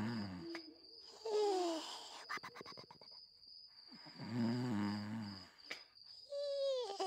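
Comic snoring from a sleeping character, twice: a low rasping snore breathing in, then a falling whistle and a quick lip flutter breathing out. A steady high chirring, like crickets, runs underneath.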